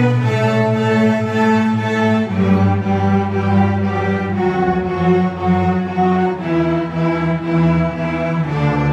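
Student string orchestra of violins and cellos bowing together in D major, most likely the D major scale. Each note is re-bowed in a short repeated rhythm for about two seconds before the section steps to the next pitch.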